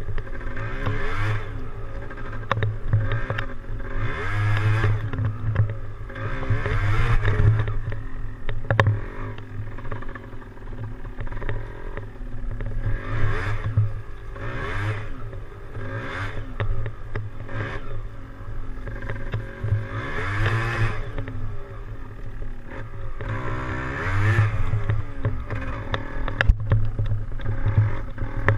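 Yamaha DT175 two-stroke single-cylinder engine being ridden, its pitch rising and falling again and again every few seconds as the throttle opens and eases off. Occasional knocks and rattles come through.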